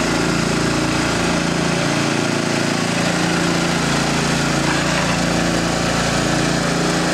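Six-inch gold suction dredge's engine running steadily at constant speed, an even drone with no change in pitch or loudness.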